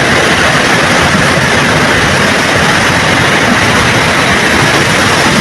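Floodwater rushing steadily in a loud, even roar.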